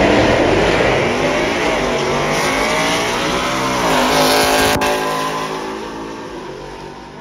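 A Ford F-150 pickup's Coyote V8 and a Dodge Challenger's Hemi V8 launching off the drag-strip start line and accelerating hard, engine pitch climbing, dropping at a gearshift about four seconds in, then climbing again. The sound fades as the cars pull away down the strip.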